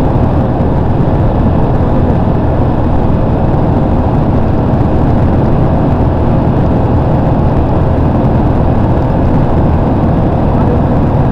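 Steady cabin noise of a vehicle travelling at highway speed: a low, even drone of engine and tyres on the road.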